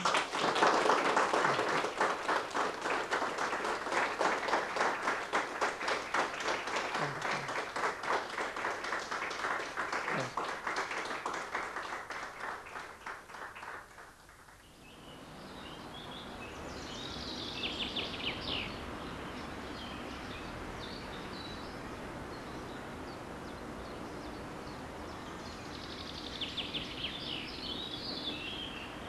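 Applause that starts right after the closing words and fades out over about fourteen seconds. Then a steady outdoor background, with birds chirping in two short spells.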